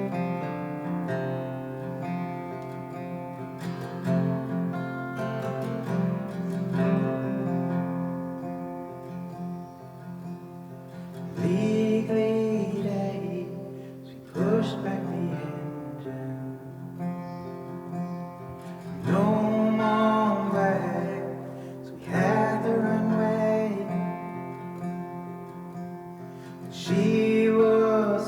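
Acoustic guitar playing, with three long sung phrases without words coming in about twelve, nineteen and twenty-seven seconds in.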